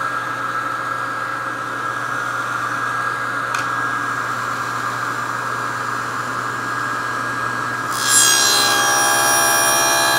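Table saw running, its blade spinning freely with a steady whine. About eight seconds in, the blade starts cutting a panel groove into a plywood drawer piece pushed along the fence, and the sound gets louder with a higher ringing tone.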